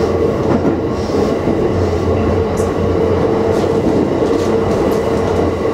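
JR West 225 series electric multiple unit running at speed, heard from inside the leading car: steady rolling and running noise with a constant hum.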